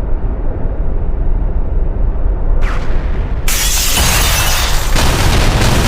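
Airliner crash sound effect: a heavy low rumble, then a brief surge, and about three and a half seconds in a loud crash and explosion that carries on as a noisy roar.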